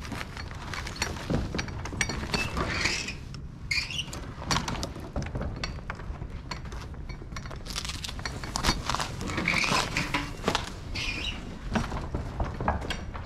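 Footsteps crunching over a debris-strewn floor, with irregular clicks and knocks.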